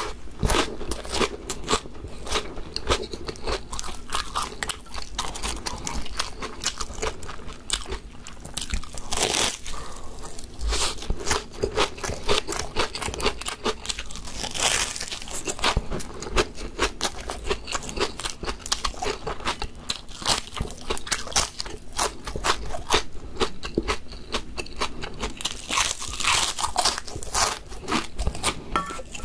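Close-miked crunching and chewing of gim-bugak, crisp fried laver seaweed chips coated in glutinous rice, with a steady run of crackly bites.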